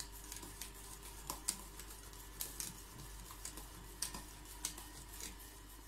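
Light, irregular clicks and taps of a wire whisk against a stainless-steel bowl, several a second, over a faint steady hum.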